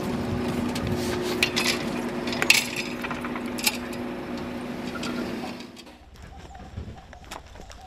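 A steady machine hum with sharp metallic clinks as a refuelling hose's metal nozzle is handled against an armoured vehicle's hull. About two-thirds in, the hum drops away, leaving quieter scattered clicks and gear rattles.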